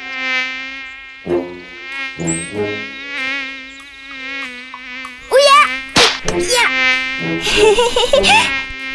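Cartoon mosquito buzzing: a steady, slightly wavering whine that carries on throughout. It is broken by a few sudden knocks and louder bursts, the sharpest a little past halfway.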